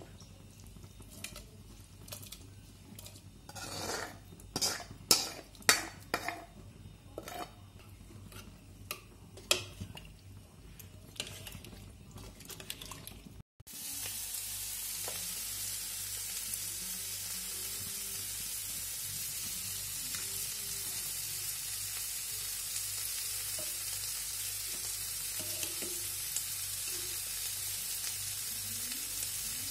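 A metal ladle clinking and scraping against an aluminium pressure cooker and a frying pan in a string of sharp knocks as the pan's contents are scraped into the dal. After a cut about halfway through, a steady sizzling hiss with a few faint ladle knocks.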